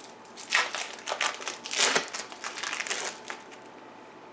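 Plastic wrapping of packaged American cheese slices crinkling in a run of irregular crackles as it is handled and pulled open.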